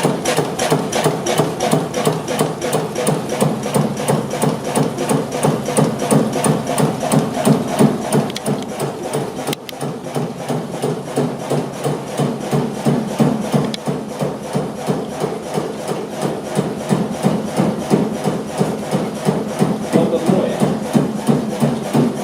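Kromhout HS2 low-speed single-cylinder diesel stationary engine running, a steady rapid knocking beat at each firing, with a brief dip in level about ten seconds in.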